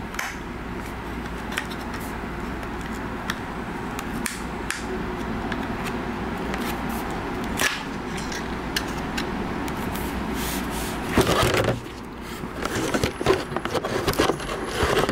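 A thin flathead screwdriver prying and scraping along the edge of a Wacom Cintiq Companion 2's aluminium back case against its adhesive, with scattered small clicks, over a steady low background hum. About eleven seconds in comes a louder scrape, followed by a run of sharp clicks and knocks near the end.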